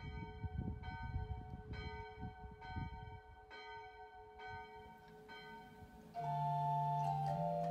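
A single church bell tolling, struck about once a second. About six seconds in, the church organ starts playing sustained chords, louder than the bell.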